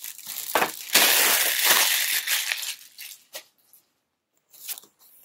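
Packaging and boxed accessories being handled and shifted on a glass tabletop. A loud rustle lasts a couple of seconds, followed by a few light knocks.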